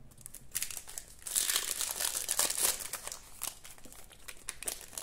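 Foil wrapper of a Panini Adrenalyn XL trading-card pack crinkling as it is handled and opened by hand: dense crackling that starts about half a second in and thickens after a second.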